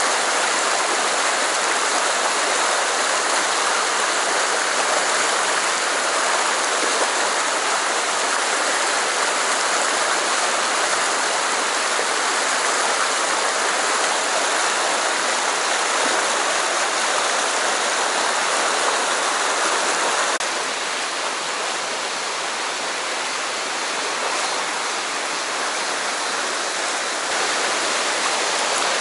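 Mountain stream rushing over rocks in shallow rapids, a steady rush of water. It drops a little in level about two-thirds of the way through.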